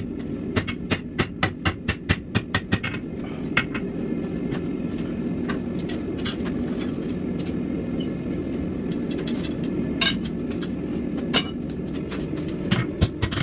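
Hand hammer striking steel on an anvil while forging a scraper. A quick even run of blows, about four a second, fills the first three seconds, then single strikes come here and there. A steady low roar sits underneath.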